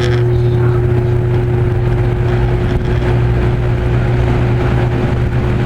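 Vintage 1980s Edison 20-inch box fan running on its low speed: a steady electric motor hum under the rush of air from the blade.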